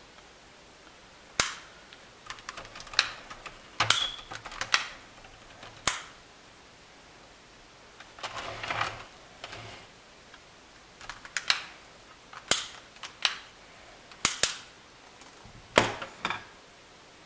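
Sharp, irregular clicks from a hand-squeezed jerky gun as ground-beef jerky strips are pressed out onto a plastic Nesco dehydrator tray, with a softer scraping stretch about eight seconds in.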